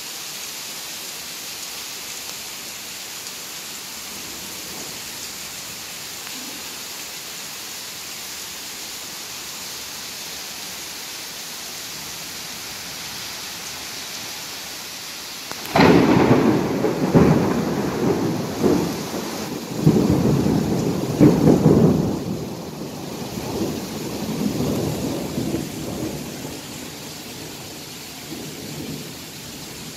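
Heavy summer rain hissing steadily. About halfway through, a sudden crack of thunder breaks in and rolls on as a rumble for about ten seconds before dying away under the rain.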